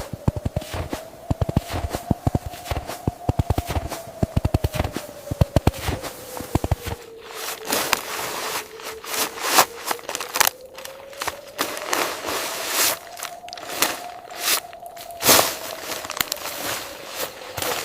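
Snow crunching under rapid steps for about the first seven seconds, then crinkly tent fabric rustling with sharp crackles. A faint tone slowly rises and falls in pitch underneath.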